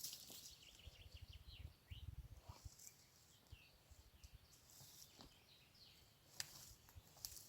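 Faint outdoor ambience: scattered short bird chirps, a few sharp clicks near the start and near the end, and a patchy low rumble.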